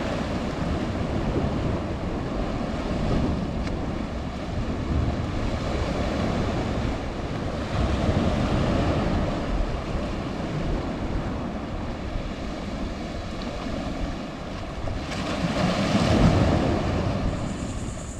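Ocean waves surging in and splashing against shoreline rocks, swelling and easing in surges, the biggest near the end, with wind buffeting the microphone.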